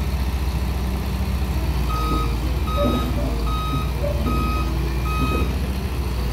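Heavy diesel machinery engine running steadily. About two seconds in, a reversing alarm beeps five times at one pitch, evenly spaced.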